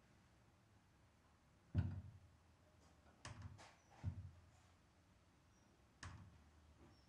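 Four dull thumps in a quiet room, the first and loudest nearly two seconds in, then two close together a little past the middle, and a last one near the end.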